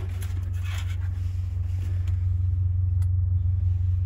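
A steady low rumble, with a few light rustles and knocks in the first two seconds and a faint click about three seconds in.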